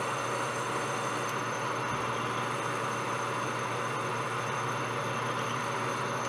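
Metal lathe running steadily with a boring bar cutting the inside of a brass bushing: an even machining noise with a low motor hum and faint high steady whines.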